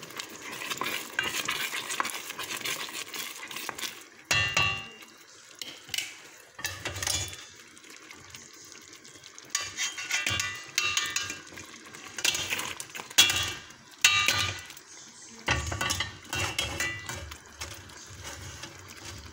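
A spoon stirring and scraping through thick creamy sauce in a stainless steel pot, with irregular clinks of metal against the pot. Later, cooked penne is tipped in from a metal mesh strainer, which knocks against the pot.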